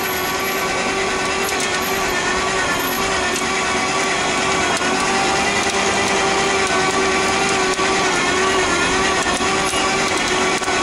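A motor-driven cable winch runs steadily, hauling a wire rope that drags a pipe-cleaning tool through a large pipe. It makes a steady hum with a whine of overtones, growing slightly louder about halfway through as the tool nears the pipe mouth.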